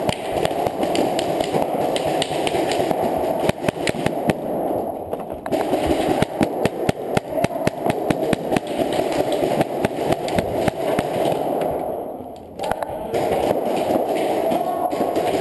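Paintball markers, the player's Tippmann TPX pistol among them, firing in a sports hall: rapid, near-continuous pops and paintballs smacking bunkers and walls, over a steady noisy background.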